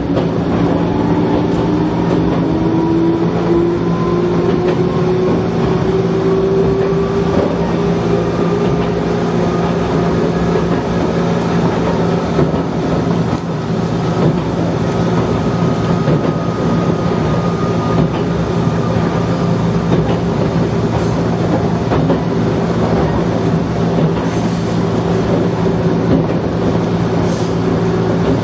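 Gakunan Railway electric train running along the line: a motor whine rising in pitch for the first dozen seconds, then holding steady, over a steady hum and the rumble of wheels on rail.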